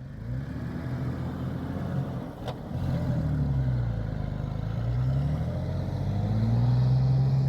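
Off-road vehicle's engine pulling under load as it is driven forward, revs rising and falling several times, then holding steady near the end.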